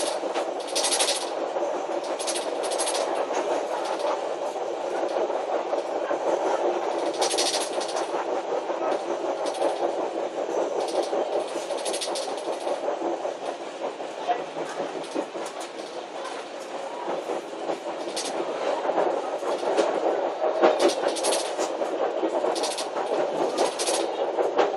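Steady running noise inside the cab of an ADL class diesel multiple unit moving along the line, with the wheels clicking over track joints and points now and then, more often near the end.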